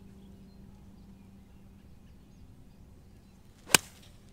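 A golf club striking the ball on a tee shot: a single sharp crack about three and a half seconds in.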